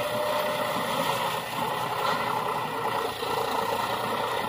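John Deere tractor's diesel engine running steadily as it pulls a loaded trolley slowly through cut maize stubble.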